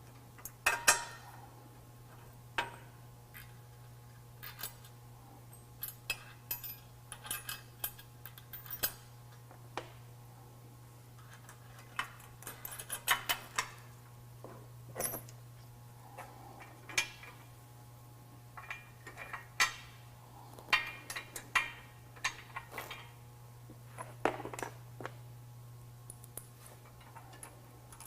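Irregular metallic clinks, taps and clicks of bolts, washers and hand tools being handled and fitted while brackets are bolted to a truck frame, over a steady low hum.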